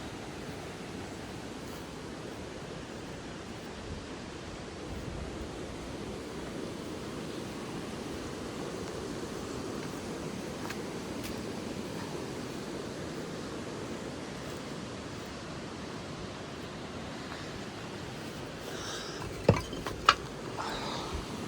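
Steady rushing ambient noise, with two sharp clicks about two seconds before the end.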